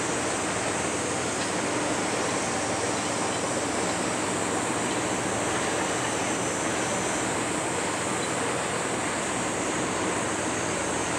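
Steady rushing wash of water from a passing container ship, its bow wave and wake breaking along the hull.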